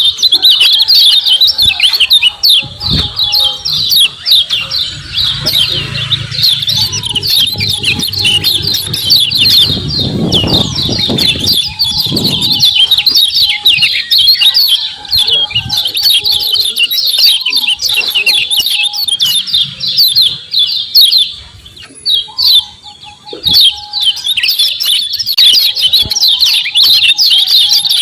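Kecial kuning, a white-eye, giving a fast, continuous high chattering of 'ciak ciak' chirps, broken briefly about three-quarters of the way through. Some low thuds sound under the chirping around the middle.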